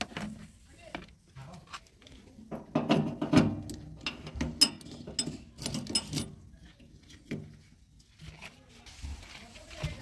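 Irregular clicks, knocks and rattles of a hand working the metal filler cap on a JCB 3DX backhoe loader's tank, thickest about halfway through.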